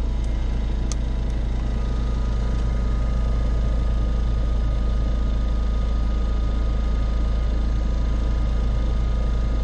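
A steady low mechanical hum, like an engine or motor idling, with two small clicks in the first second.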